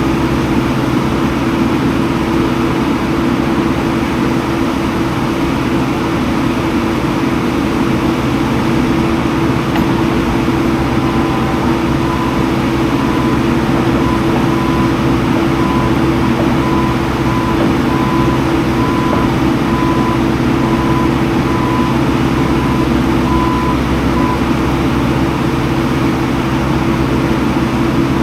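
Skid steer engine running steadily while it works the grapple. A faint high beep sounds about once a second through the middle of the stretch, like a machine warning alarm.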